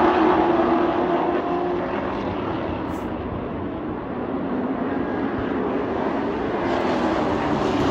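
Race trucks' engines running at speed on the oval. The sound is loudest at the start as the pack goes by, fades about halfway through as they move away, and builds again near the end as the field comes back around.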